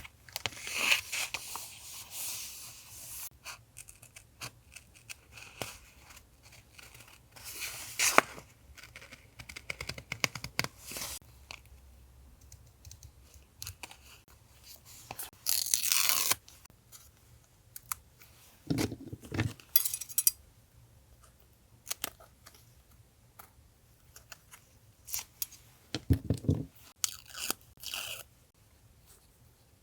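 Paper crinkling, rustling and tearing in irregular bursts, with a few dull thuds of things set down on a desk about two-thirds of the way through and near the end.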